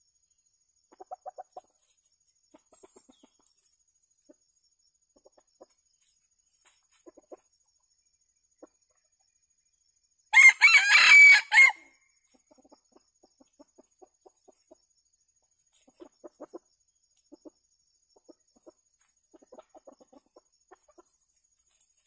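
Junglefowl rooster crowing once, a single short crow of about a second and a half, about ten seconds in; it is the loudest sound by far. Soft, scattered clucks come before and after it.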